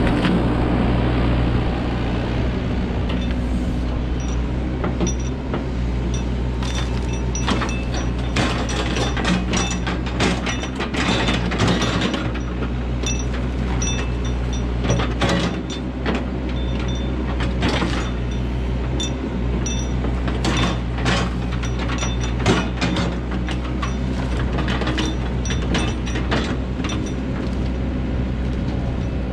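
Excavator's diesel engine running steadily at working revs, with frequent irregular clanks and cracks as it works through a pile of downed trees.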